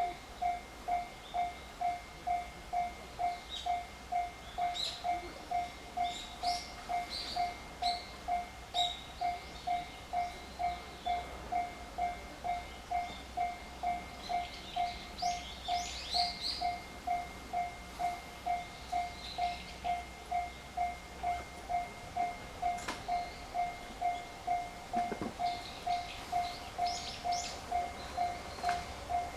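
Japanese railway level-crossing alarm ringing its steady 'kan-kan' about twice a second, the warning that a train is approaching the crossing. Faint, scattered high clicks or chirps sound over it.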